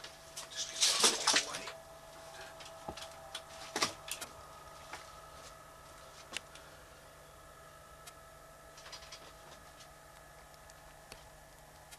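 Scattered knocks and clicks over a faint steady hum, with a loud rattling cluster about a second in, another near four seconds, and single ticks after that.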